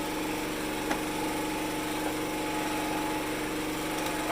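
A small engine running steadily at an even speed, a constant hum with a fast, even pulse. A faint click about a second in.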